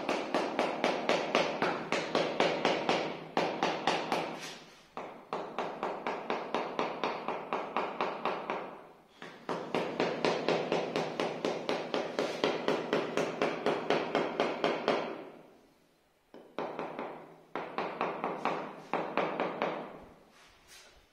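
A hammer tapping rapidly on a granite strip to bed it level into wet mortar: quick, even taps about five a second, in four runs with short pauses between them.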